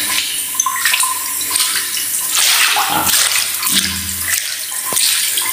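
Water swishing and splashing across a flooded tiled bathroom floor in uneven swells, as it is pushed toward the floor drain.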